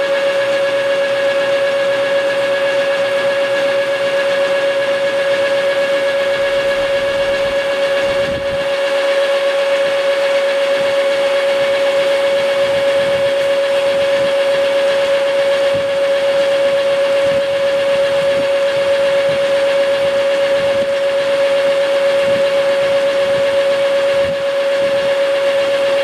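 Engine lathe turning a steel chipper-drum shaft at 450 rpm on a coarse feed of about 17 thousandths. The cut runs with a steady, unbroken whine.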